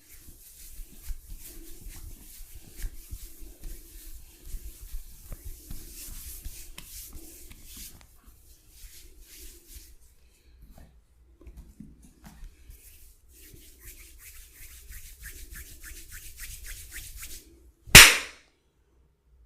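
Hands rubbing and kneading over skin and hair in a massage, irregular at first and then fast, even strokes at about five a second; then one loud, sharp smack near the end, the loudest sound.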